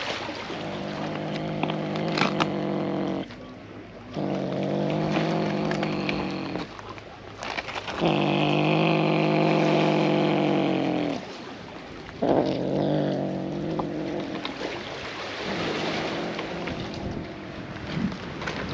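Brown tabby cat growling low with a fish in its mouth, guarding its food from others. The growls come in a long series, each lasting two to three seconds with short breaks between, the middle one the loudest.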